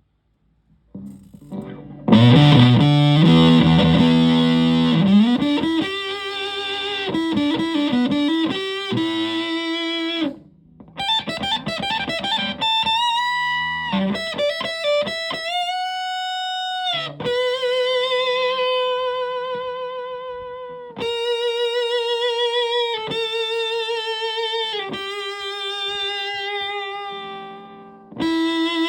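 Electric guitar with humbucker pickups played through a Tone Bender MkII fuzz pedal into a Fender Twin Reverb–style amp. A loud fuzzy chord comes in about two seconds in, followed by a lead line of bent notes and long held notes with wide vibrato, broken by a couple of brief pauses.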